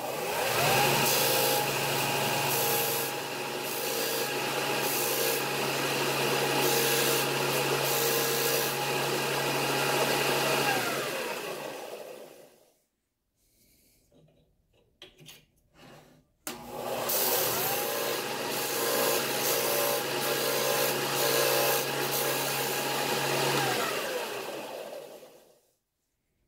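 Porter-Cable disc sander starting up and running, with the rasp of a wooden pen blank pressed against the abrasive disc coming and going as the blank's end is squared down to its brass tube. It is switched off and spins down about twelve seconds in. After a few clicks it is started again for the blank's other end and spins down near the end.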